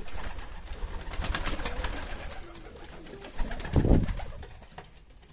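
Baku pigeons cooing, with scattered sharp clicks and a loud low thump a little under four seconds in.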